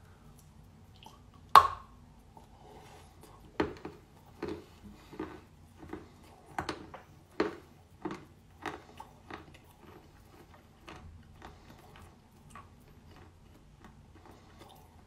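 A bite into a piece of Volyn clay chalk wet with clay water, one sharp crunch, then steady chewing crunches about one to two a second that grow faint after about nine seconds.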